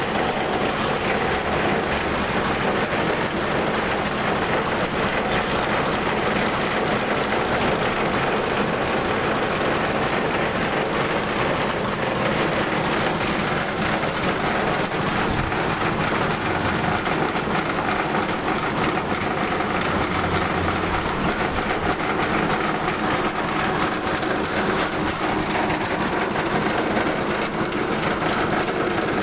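Belt-driven rice huller with a bran sieve running steadily, a continuous mechanical drone overlaid with the hiss and rattle of grain and husk pouring through the machine.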